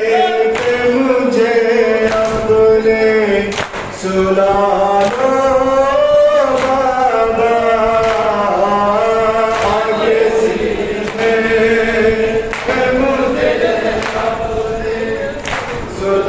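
Male voices chanting a noha, a Shia Muharram mourning lament, over a microphone in long wavering held notes. Sharp slaps land about once a second in time with it: mourners beating their chests in matam.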